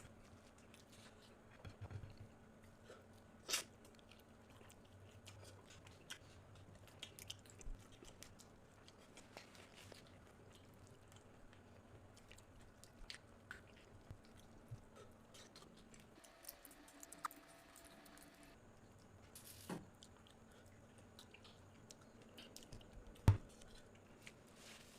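A person eating and chewing close to the microphone, with scattered small crunches and clicks, and a sharper knock near the end.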